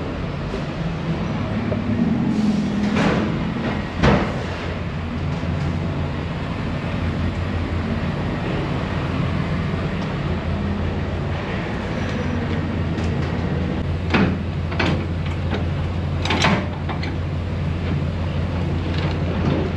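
Semi truck's diesel engine idling with a steady low hum, with several sharp metal clanks and knocks from handling the trailer's gear, the loudest about four seconds in.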